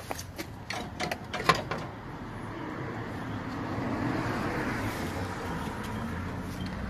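A handful of sharp clicks in the first two seconds, then a car passing on the street, its tyre noise swelling and fading. Near the end another vehicle's engine comes up, rising in pitch.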